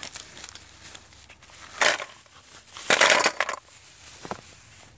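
Large snails poured from a plastic bag into an aluminium cooking pot, their shells clattering against the metal and each other. There are two bursts, a short one and then a longer one, and a single click near the end.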